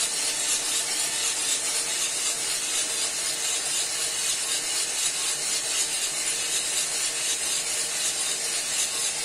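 Cormorant CR600 electric drum coffee roaster running: beans tumbling in the turning drum over a steady hiss. There are no cracks yet, because the beans are still well short of first crack.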